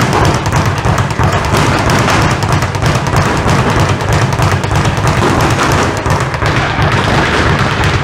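Leather speed bag being punched in a fast, continuous rattle of thuds as it rebounds off the platform.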